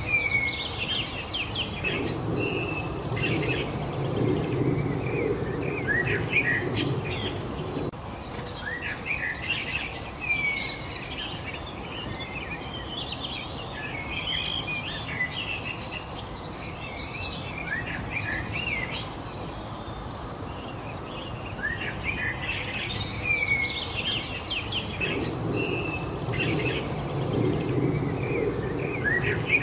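Several songbirds chirping and singing at once, many short, quick, sliding notes overlapping with one another. A low rumble sits underneath for several seconds early on and again near the end.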